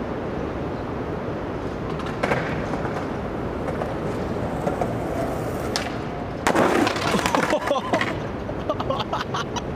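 A skateboard rolling and clattering on asphalt for about two seconds, a little after six seconds in, loud and rough against a steady outdoor background noise. A sharp click comes just before it.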